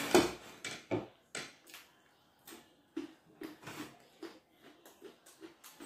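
Close-miked eating: a person chewing and smacking their lips with their mouth open, with short irregular clicks about twice a second and light taps against brass thali bowls, the loudest just after the start.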